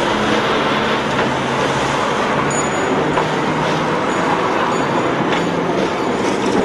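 A Hong Kong Tramways double-decker tram running along the street amid road traffic, a steady, loud mix of motor hum and traffic noise.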